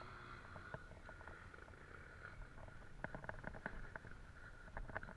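Faint, steady low rumble of a distant trail motorcycle engine, with scattered light clicks and knocks.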